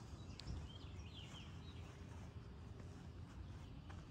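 Faint bird chirps, a quick cluster of short high calls about half a second to a second and a half in, over a low steady rumble.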